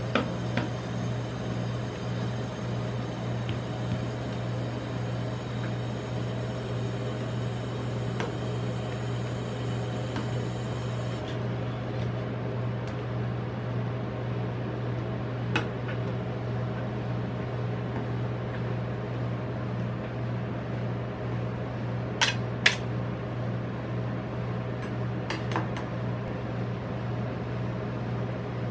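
Steady hum of a rolled-ice-cream machine's refrigeration unit under its cold steel plate, while a metal spatula smooths ice cream across the plate. A few sharp clicks of metal on metal, two close together about 22 seconds in.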